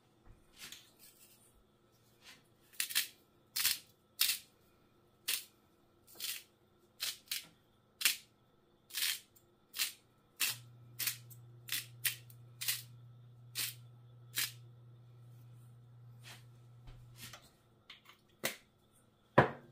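Eggs frying in olive oil in a stainless-steel pan: the hot oil spits in sharp, irregular pops, about one or two a second, the loudest near the end. A low steady hum comes in about halfway and stops a couple of seconds before the end.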